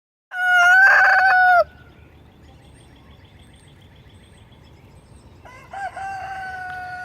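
Rooster crowing twice: a loud crow near the start, then a second, quieter crow about five and a half seconds in. Between them a faint rapid run of short calls.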